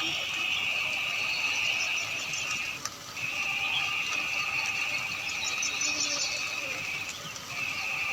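Long, steady, high buzzing animal calls: one held for about three seconds, a brief break, another of about four seconds, then a third starting near the end.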